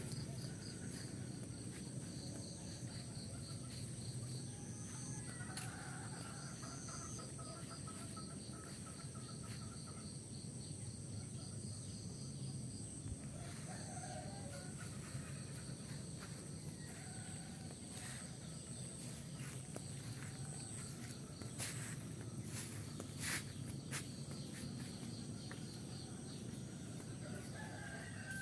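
Rural ambience: insects chirping steadily in a high pitch, with chickens calling now and then and a few sharp clicks near the end.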